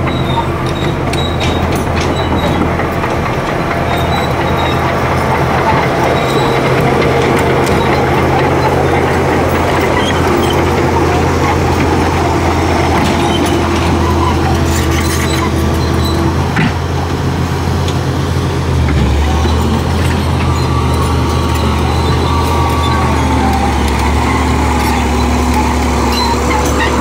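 Hydraulic excavator's diesel engine running loud and steady close by, with scattered clanks from its steel tracks and bucket as it moves. The engine note drops about two-thirds of the way through.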